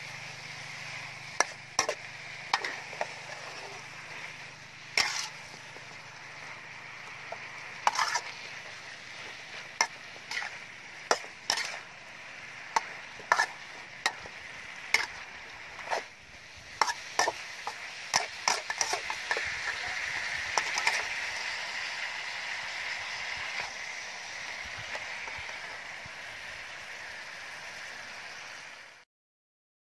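Water spinach and pork stir-frying in a metal wok: a steady sizzle with the metal spatula clanking and scraping against the wok at irregular intervals. The clanks come thickest in the middle, the sizzle grows louder about halfway through, and everything cuts off suddenly just before the end.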